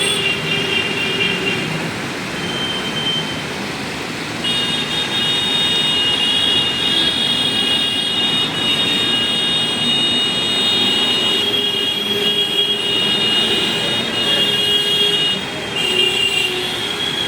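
Busy road traffic: a dense wash of engine and tyre noise with vehicle horns. A high-pitched horn comes in about four seconds in and is held almost without a break for some eleven seconds, then sounds briefly again near the end.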